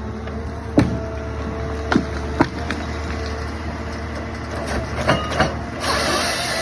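John Deere 1270G harvester running steadily at work, with several sharp knocks and cracks from timber and the harvester head. Near the end a louder, hissing machine noise comes in suddenly.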